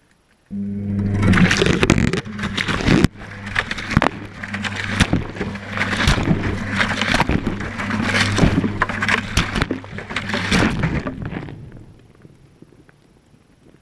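Whirlpool Indiana 1400 washing machine turning its drum in the wash cycle, heard from inside the drum. The motor hum starts suddenly about half a second in, with water sloshing and clattering throughout. The drum stops near the end and the noise fades away.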